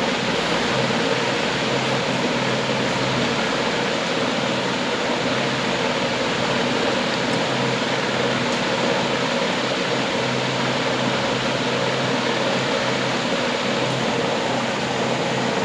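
Electric fan running steadily in the room: an even whoosh with a low hum.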